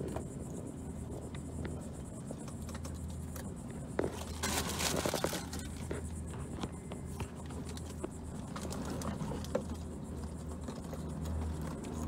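Hands handling plastic mounting brackets on the cabin ceiling, with light scraping, rustling and small clicks over a low steady rumble; a louder scraping rustle lasts about a second near the middle.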